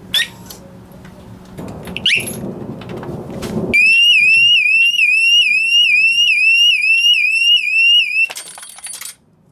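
Scorpio SR-i900 motorcycle alarm siren sounding: a loud, rapidly repeating rising whoop, about four sweeps a second, for around four and a half seconds, after a single short rising chirp about two seconds in. A brief burst of noise follows as the siren stops near the end.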